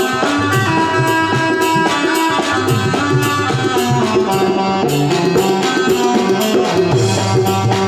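Roland XPS-10 keyboard playing a melodic tune over a steady drum and percussion rhythm, without a break.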